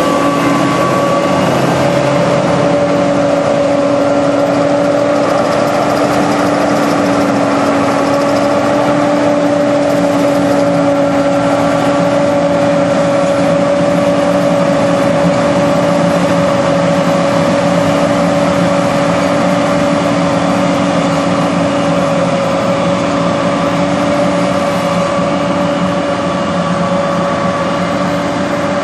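John Deere 9610 combine running steadily while harvesting wheat: a constant engine and machinery drone with a steady hum.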